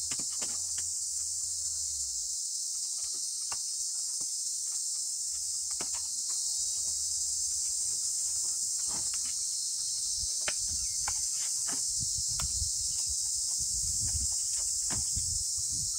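A steady, high-pitched insect chorus, with scattered light clicks and knocks from work on the bamboo, and low rumbles in the last few seconds.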